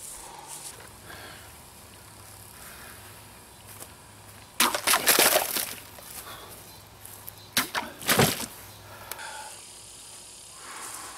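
Knife blades slashing through water-filled plastic bottles: a burst of cutting and splashing about four and a half seconds in, lasting about a second, then two sharp hits a little before and just after eight seconds.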